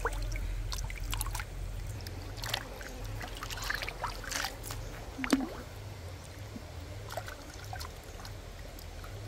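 Small octopuses being rinsed by hand in a shallow running stream: irregular splashes and drips of water over the stream's steady flow, with a louder splash about five seconds in.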